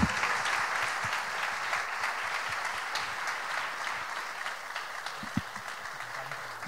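Audience applauding: many hands clapping in a hall, slowly fading toward the end.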